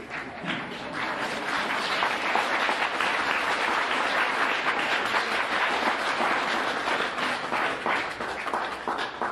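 Audience applauding: many hands clapping, swelling over the first couple of seconds, holding steady, then dying away near the end.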